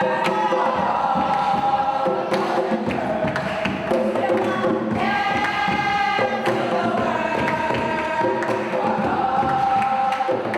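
Music with a group of voices singing long held notes over a bass line.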